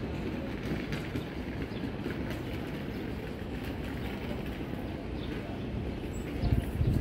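Railway station platform ambience: a steady low rumble, with a brief louder low bump near the end.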